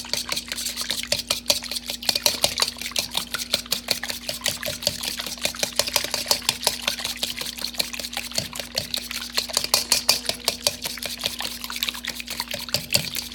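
A utensil beating a liquid quiche mixture of milk and seasonings in a bowl, with a rapid, steady run of clicks as it strikes the bowl.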